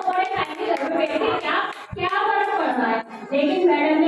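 A woman sings a song into a handheld microphone, holding long notes, while people around her clap along with a few scattered handclaps.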